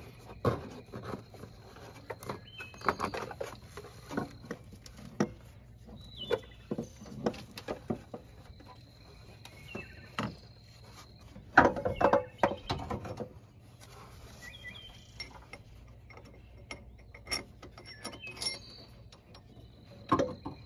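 Irregular metal clunks, knocks and scrapes of a new AC compressor being lowered into an engine bay and worked into position against its mounting, with the loudest cluster of clunks a little past halfway.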